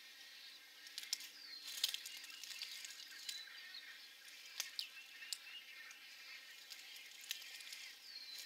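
Faint chorus of birds calling across a nesting colony: many short high chirps and a few quick downward-sliding calls, with scattered sharp clicks.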